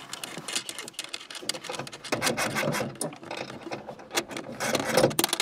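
Hands handling a black power cable and fitting it at a bus bar's terminal studs: rubbing, scraping and a run of small irregular clicks, busiest about four to five seconds in.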